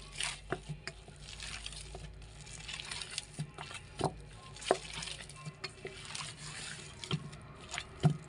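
Hands kneading a soft dough of wheat flour and grated potato in a stainless steel bowl: wet squishing and rustling with irregular sharp knocks as the dough is pushed and slapped against the bowl.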